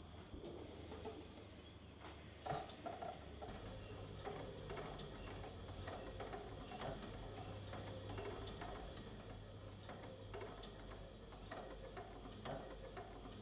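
Flying Wheel treadle sewing machine running, a faint clatter of light clicks, about one or two a second, over a low hum.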